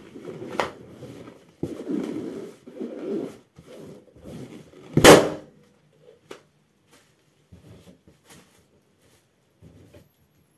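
Latex balloon squashed under a socked foot, its rubber creaking and straining, then bursting with one loud pop about five seconds in.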